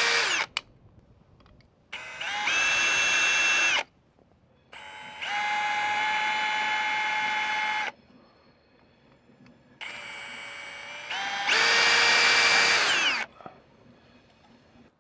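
Electric drill drilling fixing holes in a wall for a camera mounting plate, in separate runs. One run ends just after the start, then three more follow, about 2, 3 and 3.5 seconds long. Each run steps up to full speed with a steady whine and falls in pitch as it winds down.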